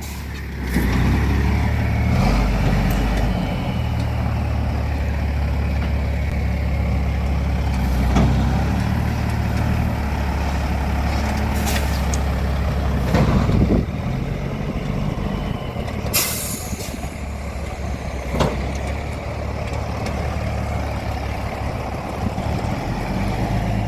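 Semi-truck's diesel engine running steadily close by while manoeuvring, with a few knocks and a short hiss of air about two-thirds of the way through.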